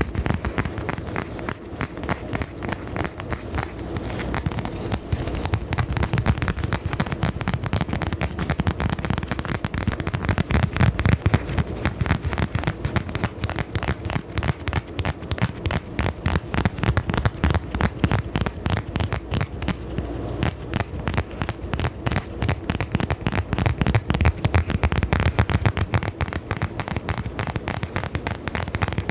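Dense, rapid crackling and clicking from close-miked ASMR triggers, continuing without a break.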